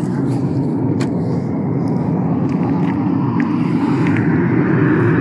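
Steady low rumble of a car, growing slightly louder, with a few faint clicks.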